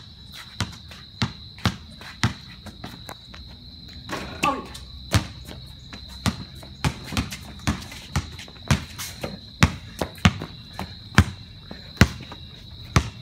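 Basketball dribbled on a concrete court: sharp bounces at an uneven pace, sometimes about two a second, over a steady high chirring of insects. A short shout comes about four seconds in.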